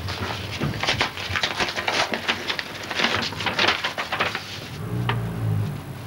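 Paper rustling and crackling as a letter is pulled out and unfolded by hand, easing off about four and a half seconds in.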